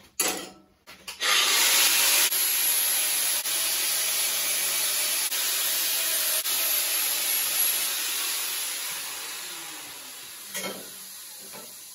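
Angle grinder with a cut-off disc cutting through steel tube: a loud, steady, harsh noise that starts a little over a second in and tapers off over the last few seconds.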